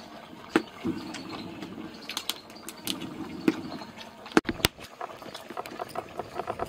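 Mutton frying in masala in an aluminium pressure cooker on high heat, sizzling with sharp, irregular crackles.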